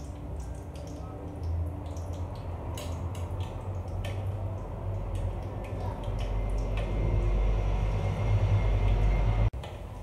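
Vermicelli-coated cutlets deep-frying in hot oil in an aluminium kadai, with scattered crackles and the light knock of a metal spoon ladling oil over them. Underneath runs a low rumble that grows louder and cuts off suddenly near the end.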